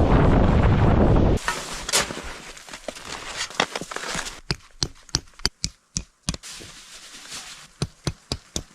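Wind buffeting the microphone for about a second and a half, then cutting off abruptly. A quieter stretch follows, with irregular sharp crackles and clicks, a dozen or more of them.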